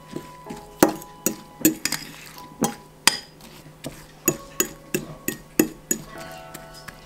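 Kitchen utensils clinking and tapping against dishes in irregular sharp knocks, about two a second, with faint background music underneath.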